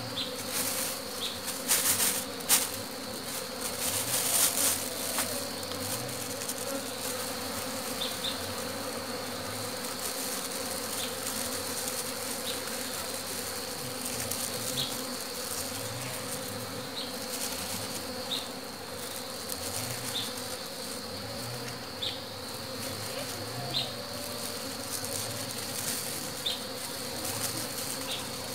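A cluster of honeybees buzzing steadily as they are handled and scooped into a log hive, with a few brief rustles about two and four seconds in.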